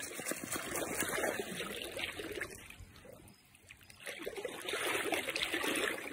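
Shallow lake water splashing and sloshing as a Newfoundland dog wades and paws at a floating toy, easing off about three seconds in, then picking up again.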